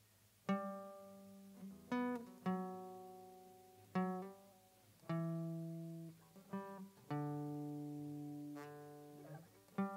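Guitar playing a slow instrumental intro: picked notes and chords struck every second or so and left to ring out and fade.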